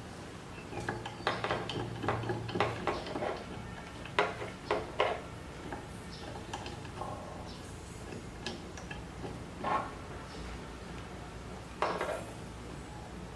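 Metal parts and hand tools clinking and knocking while the Z axis of a CNC machine is being put together. The clicks come irregularly, busiest in the first few seconds, then a few scattered knocks.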